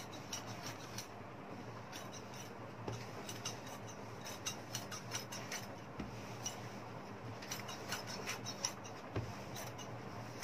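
Large tailor's shears cutting through printed percale cotton fabric: runs of quick, irregular snips and blade scrapes through the cloth.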